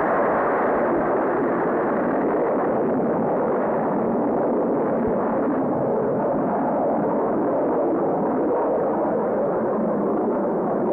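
Jupiter-C rocket engine firing at liftoff and through the climb: a loud, steady rushing noise without breaks.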